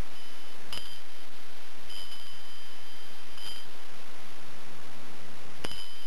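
A small Capri bell rung a few times. There is a sharp struck ring about a second in, a longer ring over the middle, and another strike near the end, all high-pitched over a steady hiss.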